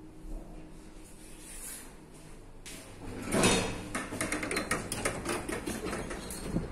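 Elevator doors sliding open about three seconds in, after a quiet wait in the car, followed by a quick run of clicks and taps.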